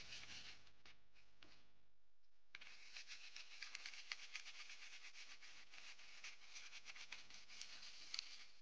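Bristle dish brush scrubbing wet model car parts to clear off the old, softened paint: a faint scratchy rustle of many quick strokes, light at first and busier from about two and a half seconds in.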